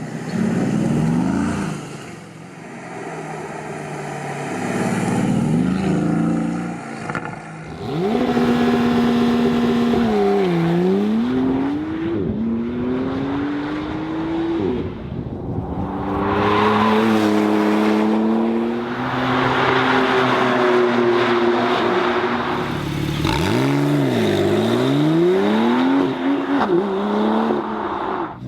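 High-performance sports car engines and exhausts revving and accelerating hard, the pitch climbing and then dropping sharply at each gear change. The sound changes abruptly about seven seconds in, as a second car takes over.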